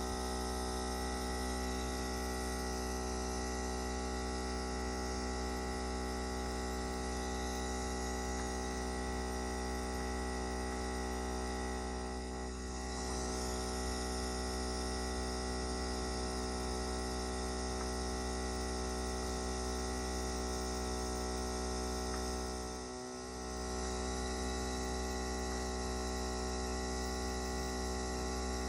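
Compressor nebulizer running with a steady electric hum for an inhalation treatment, dipping briefly twice.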